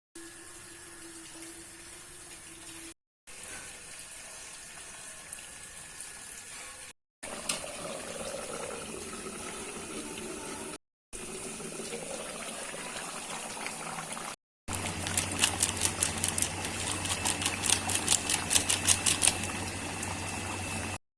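Chicken curry cooking in a pan, with a steady sizzle and bubbling, broken into several short clips by abrupt cuts. Near the end comes a quick run of clicks over a low hum.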